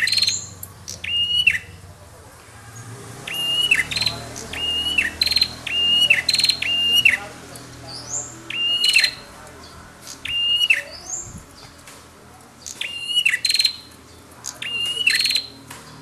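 Caged prenjak (prinias) calling back and forth. About ten loud, repeated phrases, each a high held note that drops away at the end, run together with a quick buzzy rattle, with a few short rising whistles between them.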